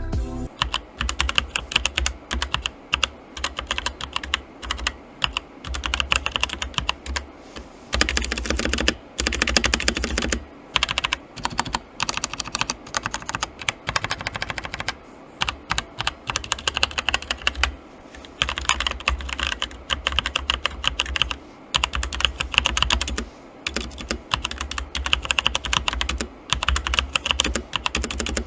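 Fast typing on an E-YOOSO K-620 mechanical keyboard with brown switches: a dense run of key clicks, broken by several short pauses.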